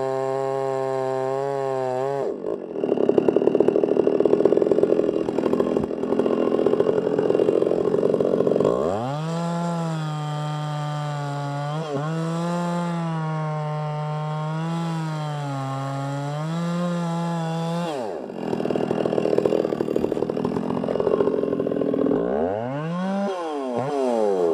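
Two-stroke chainsaw bucking a fallen, rotten white fir. The engine note drops into a rough, noisy cutting sound in two long stretches, and between them the engine runs high with a wavering note. Near the end the revs rise and fall several times.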